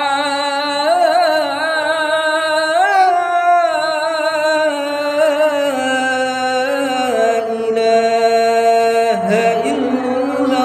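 A muezzin's solo voice chanting the adhan, the Islamic call to prayer, holding a long, drawn-out note decorated with quick turns of pitch. A new, lower phrase begins about nine seconds in.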